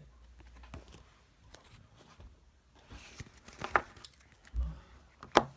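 Trading cards and their foil pack being handled: faint rustling and crinkling, with two sharp clicks and a low thump in the second half.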